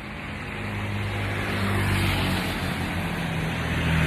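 A motor vehicle's engine humming steadily as it draws nearer, getting louder over the first couple of seconds, with the hiss of its passing.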